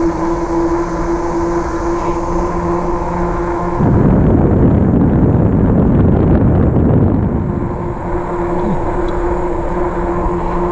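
RadRover fat-tire e-bike riding on pavement, giving a steady mid-pitched hum. About four seconds in, wind rushing over the microphone covers the hum for a few seconds, and then the hum comes back.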